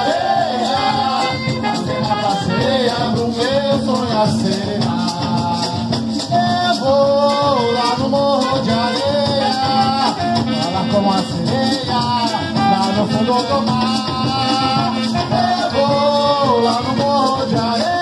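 Live carimbó band playing a lively Brazilian rhythm: maracas shaking steadily over drums, with a bending melody line on top.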